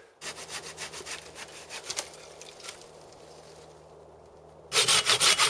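Hand saw cutting firewood, back-and-forth strokes through the wood. The strokes are quieter at first, then much louder and quicker from about four and a half seconds in.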